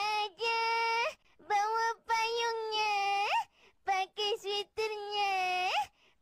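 A young boy singing unaccompanied in long held notes, each phrase ending in an upward slide, with short silent gaps between phrases.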